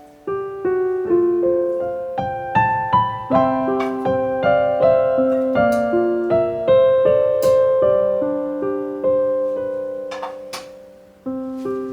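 Solo piano background music: a slow, gentle melody of struck notes and chords, each ringing and fading. It thins out to a pause shortly before a new phrase begins near the end, with a few faint clicks underneath.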